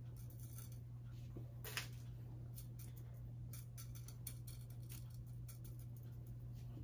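Faint scattered clicks of small white aquarium pebbles being set in place by hand, over a steady low hum.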